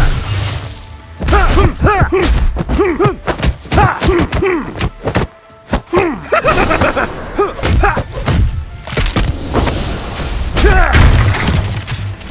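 A rapid flurry of punch and impact sound effects, many hard hits in quick succession, over background music.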